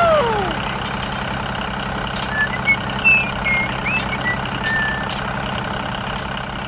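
Tractor engine running steadily, with a brief falling tone right at the start and a few short high chirps in the middle.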